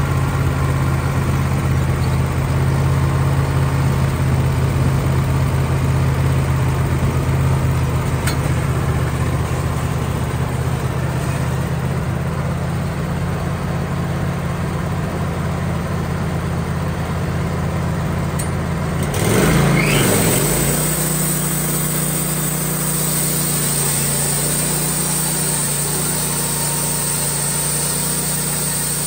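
Wood-Mizer LT15 portable sawmill's engine running steadily, with no cut under way. About two-thirds of the way in the sound changes with a short, louder clatter, and the engine settles into quieter, lower-pitched running.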